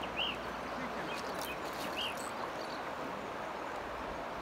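River water running steadily over a stony bed, with a bird giving short, repeated rise-and-fall call notes every second or so.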